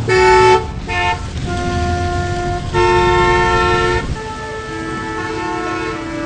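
Street traffic with car horns honking over the low rumble of engines. There is a short blast, a second short one about a second in, then longer held honks of different pitches. The loudest runs for about a second, starting about three seconds in.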